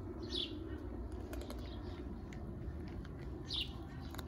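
Several cats and kittens crunching dry kibble from plates: a steady scatter of small crisp clicks. Two brief high chirps cut in, about half a second in and near the end.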